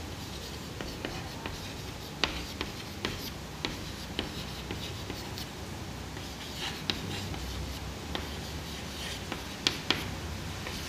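Chalk on a chalkboard: irregular sharp taps and short scrapes as words are written by hand.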